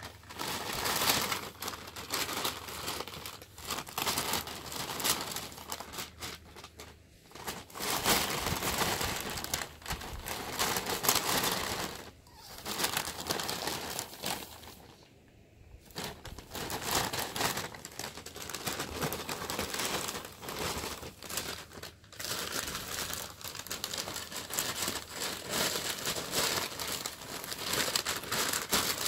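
Thin plastic shopping bag crinkling and rustling almost without a break as a ferret wriggles and rolls around inside it, with a few short lulls when it lies still.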